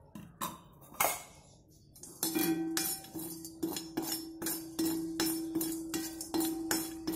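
A few sharp clinks in the first two seconds, like a steel spatula knocking an iron pan, then background music comes in about two seconds in: a held note over a steady percussive beat.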